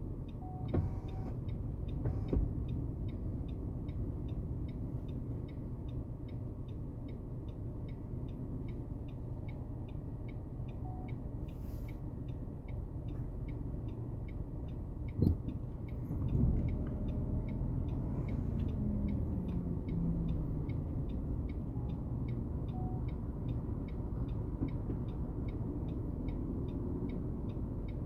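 Steady low rumble of a car engine idling, with faint regular ticks about twice a second and a single sharp knock about fifteen seconds in.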